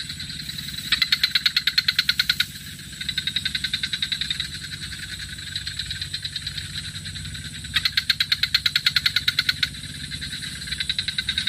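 Rapid, high-pitched pulsing trills that come in repeated bursts of one to two seconds, from calling animals in the evening chorus, over a steady low hum.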